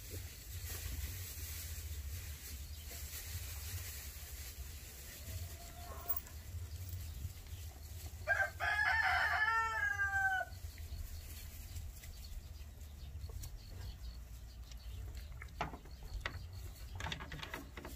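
A rooster crowing once, a call of about two seconds roughly halfway through, over a steady low rumble. A few light clicks near the end.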